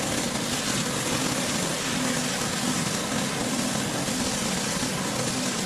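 Pressure washer running: a steady engine drone under the hiss of the water spray.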